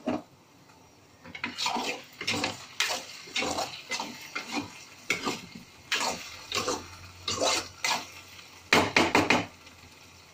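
Metal spatula stirring okra curry in a black kadai, scraping and knocking against the pan in a run of irregular strokes, with a quick flurry of strokes near the end.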